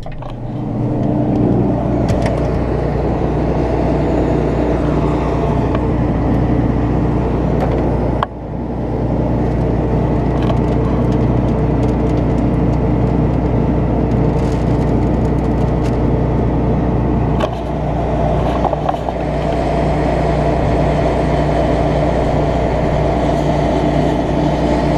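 Combine harvester running steadily with a constant low engine drone; the sound dips briefly twice, about eight and seventeen seconds in.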